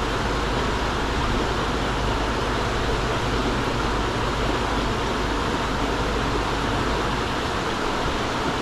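Steady rushing of flowing river water, an even hiss with a low hum underneath.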